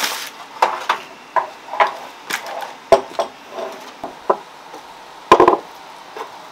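Irregular knocks and taps of kitchen work, about a dozen of varying strength. The loudest is a quick double knock about five seconds in.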